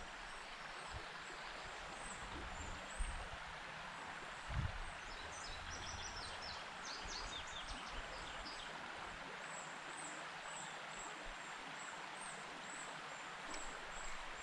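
Quiet creekside ambience: a steady soft hiss of outdoor background noise, with small birds chirping, most busily about five to seven seconds in. A couple of soft low thumps come around three and four and a half seconds in.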